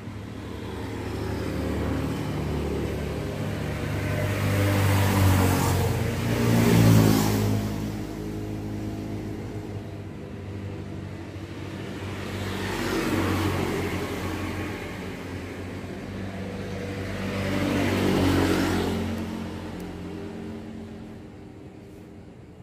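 Motor vehicles passing by on a road, engines swelling up and fading away: a pair of passes loudest around five to seven seconds in, then two more around thirteen and eighteen seconds.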